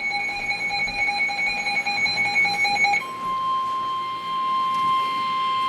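Weather radio receiver sounding a warning alert: a pulsing electronic alarm beep for about three seconds, then a steady single-pitch tone, the NOAA Weather Radio warning alarm tone that comes before a warning message.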